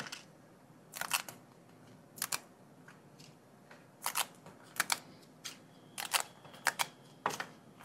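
Paper pull-tab gambling tickets being torn open by hand: a run of short, crisp paper rips and snaps as the perforated tabs are pulled back, about seven in all with short pauses between.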